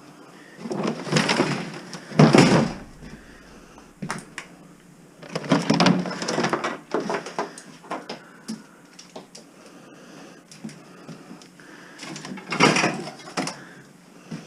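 Household clutter being rummaged through and shifted, rustling and clattering in three bursts with sharp knocks: about a second in, again around five to seven seconds, and near the end.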